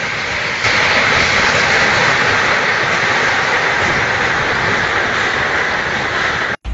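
Typhoon-force wind blowing hard, a steady rushing noise that grows louder about half a second in and cuts off abruptly just before the end.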